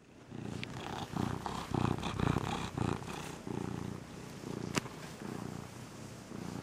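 Domestic cat purring right at the microphone, the rumble swelling and easing about twice a second with its breaths. A single sharp click comes about two-thirds of the way in.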